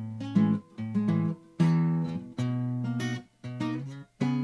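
Acoustic guitar played flat on the lap, plucking notes and chords in short phrases, a few of them stopped short into brief gaps.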